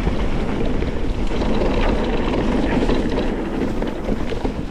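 Wind buffeting the microphone of a fast-moving GoPro action camera, over a continuous rumble and rattle from travelling over rough ground.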